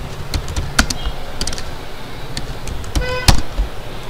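Typing on a computer keyboard: scattered key clicks as a short command is typed, with a brief pitched tone about three seconds in.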